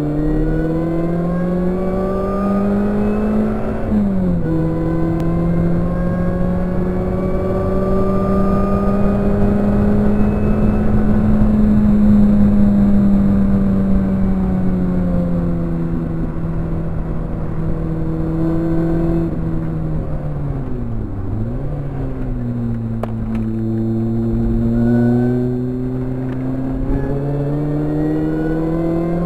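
Supercharged Vauxhall VX220's four-cylinder engine heard from inside the cabin under hard driving. The revs climb, drop sharply at a gear change about four seconds in, then rise slowly to hold near 6,000 rpm. They ease off, dip sharply and briefly about two-thirds of the way through, and then climb again from a lower pitch.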